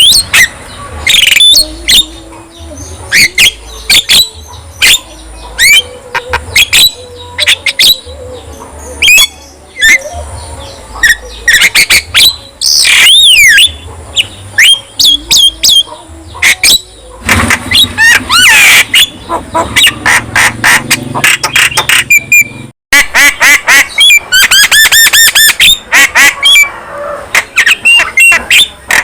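Javan myna singing a varied, loud song of sharp clicks and harsh chattering calls mixed with gliding whistles, with a falling whistle about halfway through and a quick run of rapid repeated notes near the end.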